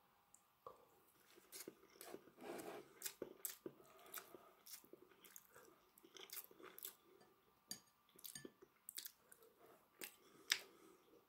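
Faint close-up chewing of a mouthful of boiled egg and rice eaten with chopsticks, with many small sharp mouth clicks and a louder click near the end.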